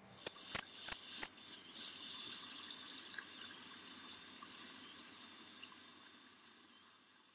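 High, piping bird calls: a run of loud, repeated whistled notes, about three a second, for the first two seconds, then fainter, quicker calls trailing away.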